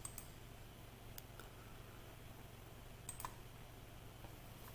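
A few faint, sharp computer clicks over a low steady hum.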